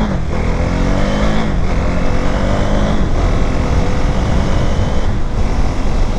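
KTM Duke 390's single-cylinder engine pulling up through the gears. The pitch climbs and drops back at each of three upshifts in the first three seconds, then runs steadier, over a heavy low wind rumble.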